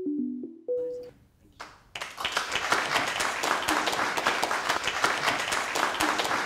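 A short jingle of a few piano notes that ends about a second in, then an audience clapping steadily from about two seconds in.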